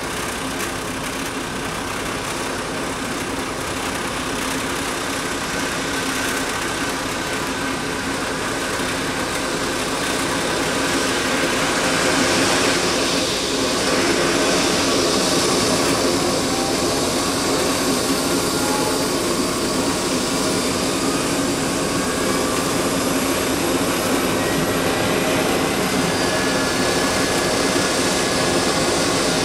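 Eurocopter EC135 helicopter's twin turbine engines starting up: a steady turbine whine that grows louder over the first dozen seconds, then holds, while several whining tones climb slowly in pitch as the engines spool up.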